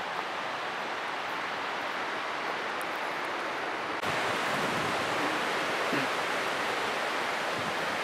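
Steady outdoor rushing noise with no distinct events, stepping up louder at a cut about four seconds in.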